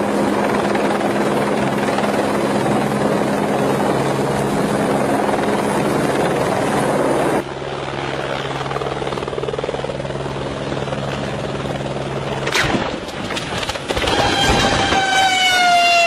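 Helicopter running, with a steady mix of rotor and engine noise and a low steady hum. The sound changes abruptly about seven seconds in. A short sharp noise comes about twelve and a half seconds in, and near the end a siren starts to wail, its pitch sliding slightly down.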